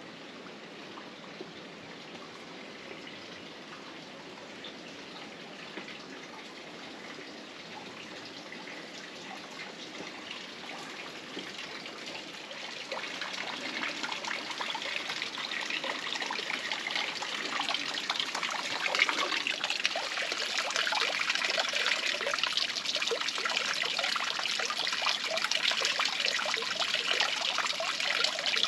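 Running water trickling and splashing, growing steadily louder from about halfway through.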